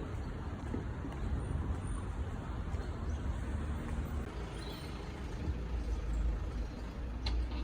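Steady low rumbling noise, heaviest in the deep bass, like road traffic or a vehicle running.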